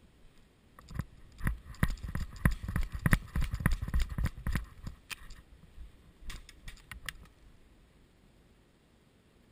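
Quick, irregular footsteps with gear rattling and knocking close to the microphone as an airsoft player runs. It starts about a second in, is busiest for the next few seconds, and dies away after about seven seconds.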